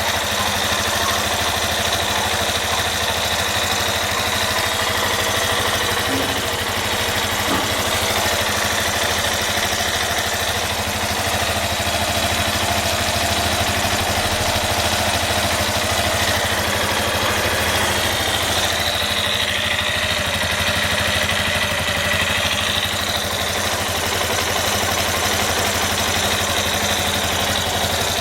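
Yamaha Fazer 250's single-cylinder engine idling steadily, with a strange noise from the engine that the owner asks could be a connecting-rod knock.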